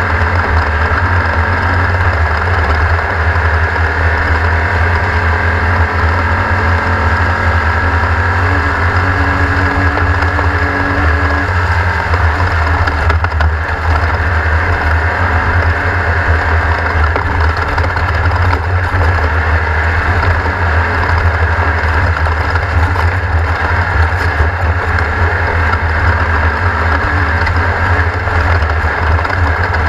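Air-cooled 1600 cc Volkswagen engine of a Class 1600 off-road race car running steadily: a loud, continuous drone with a strong low hum and no distinct revs or gear changes.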